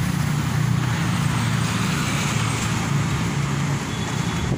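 Strong gusting wind blowing against the microphone: a steady low rumble with a rushing hiss over it.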